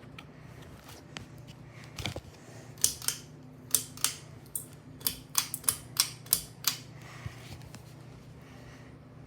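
Hampton Bay Littleton ceiling fan running with a steady low motor hum, while about a dozen sharp clicks come in an uneven run through the middle.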